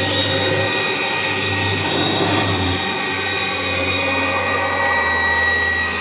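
Kirby G4 upright vacuum cleaner running steadily while it is pushed across carpet, its motor and aluminium fan giving a steady high whine over a low hum.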